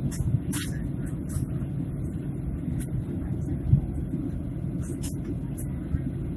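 Airliner cabin noise on the approach to landing: a steady low rumble of the engines and airflow, with a few short clicks and rattles from the cabin.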